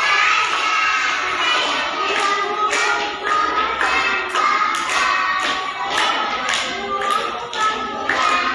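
A group of young children singing a song together and clapping their hands in rhythm.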